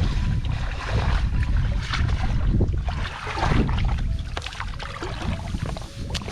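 Water sloshing and splashing, with wind rumbling on the microphone.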